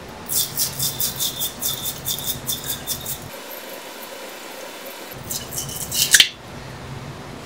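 Rasping scrape of a tool being worked around the cut end of a copper pipe, cleaning and deburring it: quick repeated strokes, about six a second, for about three seconds, then a shorter burst of scraping a couple of seconds later.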